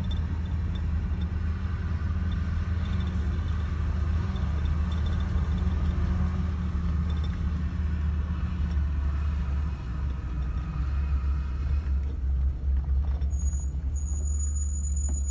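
Steady low rumble of a vehicle engine running, with road noise. About twelve seconds in the sound shifts and a thin, high, steady whine comes in.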